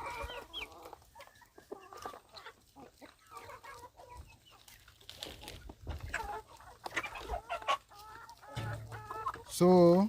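A flock of chickens clucking, with many short calls overlapping. Near the end one bird gives a single much louder call, about half a second long.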